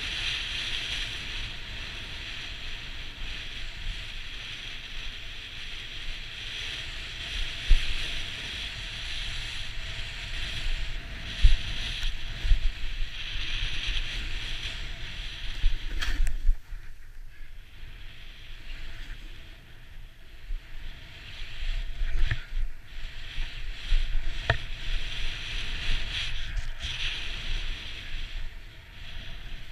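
Snowboard sliding and turning through powder snow: a steady hiss of the board on the snow that swells and fades from turn to turn, with wind on the microphone. A few low thumps come as the board hits bumps, and there is a quieter stretch a little past halfway.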